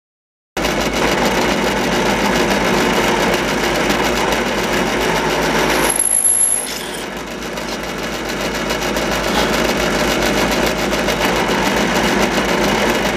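Delta 8-inch benchtop drill press running steadily while a small drill bit spots hole centres in a thin aluminum plate.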